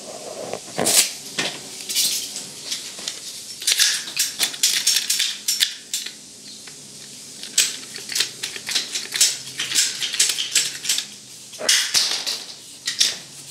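Hand ratchet pipe cutter clicking and snapping as it bites through a brown PVC water pipe, a run of irregular sharp clicks mixed with the clatter of the pipe and tools being handled.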